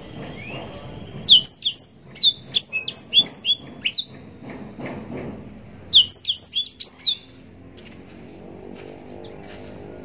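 Blackthroat (black-throated canary) singing: two bursts of rapid, high, down-slurred notes. The first starts just over a second in and lasts about three seconds; the second, shorter one comes about six seconds in.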